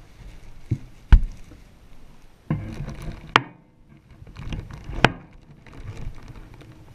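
Disposable diapers and plastic bin bags rustling and crinkling as they are pressed down inside a full rubbish bin, with three sharp knocks, the loudest about a second in.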